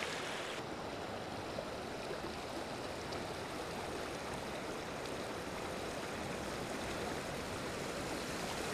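Steady rushing of a stream's current flowing past the bank.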